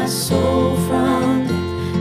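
Music from a worship song: a sung-free instrumental passage of held chords, with two short cymbal-like strikes.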